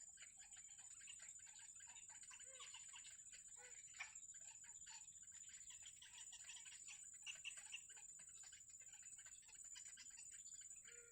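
Faint, rapid high-pitched cheeping of nestling birds in the nest, with a steady high whine under it.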